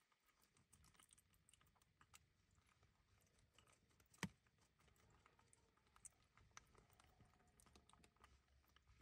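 Near silence with faint scattered crinkles and ticks from a plastic bag and snack wrappers shifting, and one sharper click about four seconds in.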